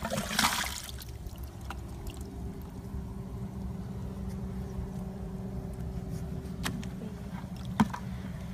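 Water splashing into a plastic bucket as an eel slides out of a PVC pipe, within about the first second. Then a steady low hum with a few light knocks.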